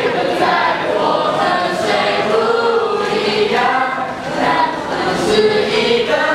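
A group of voices singing together, with notes held for about a second at a time.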